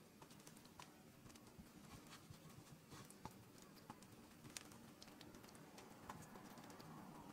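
Near silence: a faint steady room hum with light, scattered small clicks and taps of hands pleating soft dough on a wooden board.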